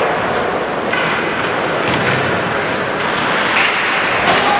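Ice hockey game noise in an arena: a steady hiss of skates on the ice and background din, with sharp knocks of sticks and puck about a second in and again near the end.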